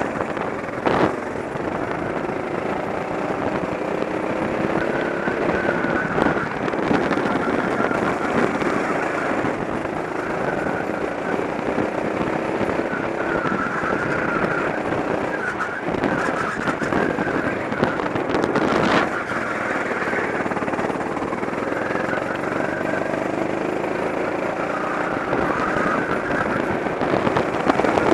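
Go-kart engine running hard, heard onboard, its pitch rising and falling again and again as the kart accelerates and slows through the corners, with a few sharp knocks.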